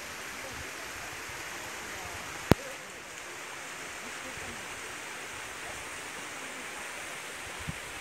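Shallow mountain stream flowing over rocks, a steady rush of water, with a single sharp click about two and a half seconds in.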